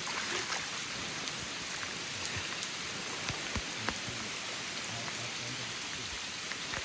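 Heavy rain falling, a steady hiss with scattered sharp drop impacts.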